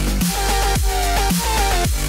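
Electronic dance music with a heavy bass that drops in pitch about twice a second, under a repeating synth melody.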